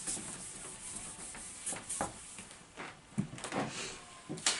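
Whiteboard eraser wiping a dry-erase board clean in a series of short scrubbing strokes.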